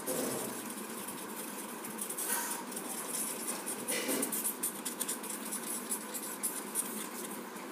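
Felt-tip marker scribbling on cardboard: a continuous scratchy rubbing of the nib as it is dragged in quick squiggles.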